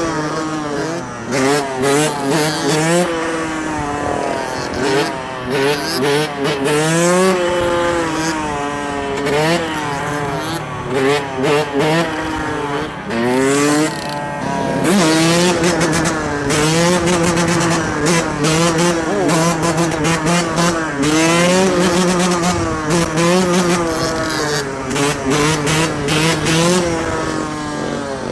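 Dirt bike engine revving hard, its pitch climbing and dropping again every second or two as the rider works the throttle and shifts.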